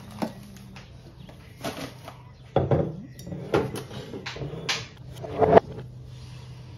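A ceramic mug and a glass vase handled on a stone kitchen countertop: a series of about seven knocks and clinks as they are picked up and set down, the loudest about two and a half seconds in and again near the end. The plastic wrapping of a flower bouquet crinkles near the start, and a faint steady low hum runs underneath.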